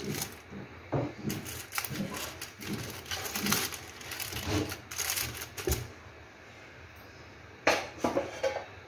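Aluminium foil parcels crinkling and crackling in irregular bursts as hands press and settle them on a wire rack in a pot. The crackling stops about six seconds in, with one more short burst near the end.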